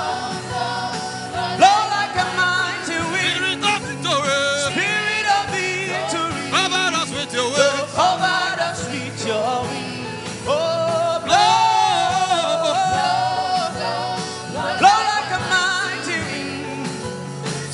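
Gospel worship song: singing over instrumental backing with a steady beat.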